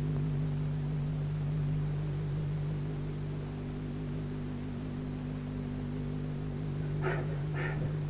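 Steady electrical hum with hiss on the soundtrack. Near the end a run of short, evenly repeated sounds begins, about two a second.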